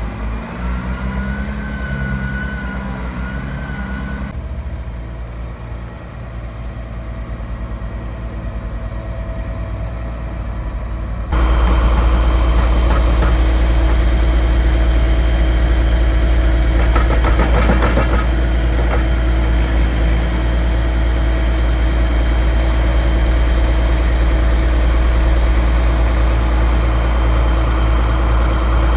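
Heavy farm vehicle engine running steadily while hauling manure. The sound changes abruptly about four seconds in and again about eleven seconds in, and is much louder and closer after the second change.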